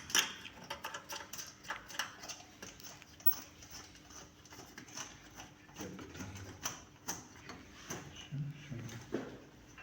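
Irregular light clicks, taps and knocks of hands handling a circuit board and its plastic and metal parts, fitting connectors and pieces into place.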